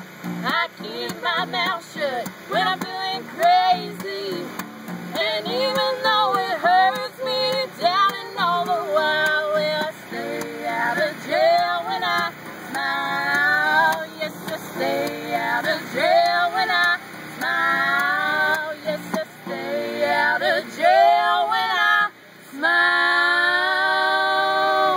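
A woman singing, with quick pitch changes, a short break near the end, then one long held note.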